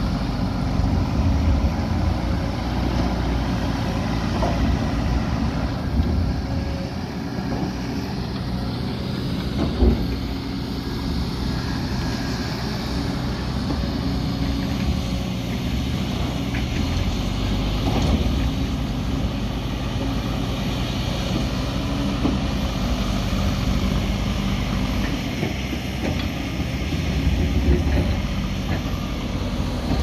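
Diesel engine of a JCB backhoe loader running steadily under working load, with one sharp knock about ten seconds in.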